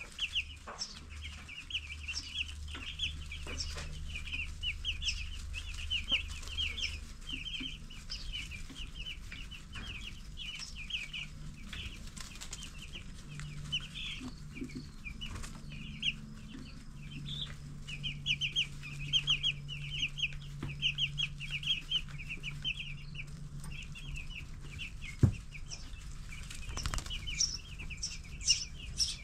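Ten-day-old broiler chicks peeping, rapid runs of short high chirps, over a low steady hum. A sharp tap stands out a few seconds before the end.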